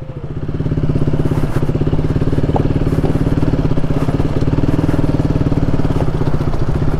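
KTM motorcycle engine running steadily under way on a rough gravel track, growing louder over the first second and then holding an even note.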